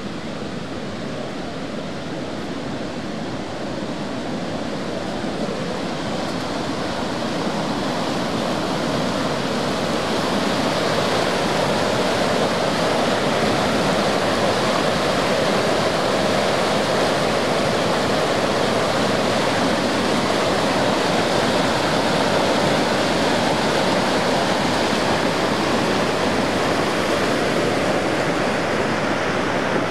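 Creek in flood: muddy floodwater rushing and churning through the channel under a road bridge, a steady rush of water that grows louder over the first ten seconds or so and then holds steady.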